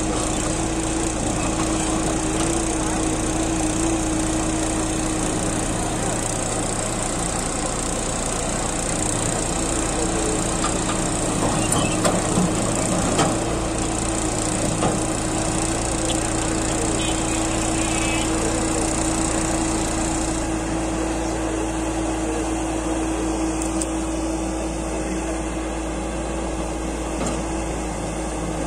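JCB 30 Plus mini excavator's diesel engine running steadily at a constant pitch while the machine works its boom and arm, with a few short knocks near the middle.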